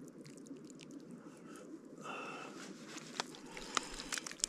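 Wash water being tipped out of a steel bowl of raw pork chunks and shaken from the hand, with light drips, clicks and taps against the bowl over a steady low rush of background noise.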